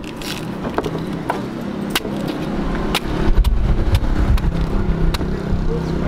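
Machete chopping into a green coconut: a quick series of sharp chops over the low rumble of road traffic, which swells about halfway through.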